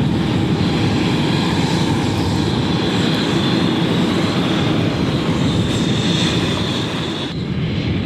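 Gusting wind buffeting an outdoor microphone: a loud, steady, fluttering rumble with a hiss above it, and the hiss drops away suddenly about seven seconds in.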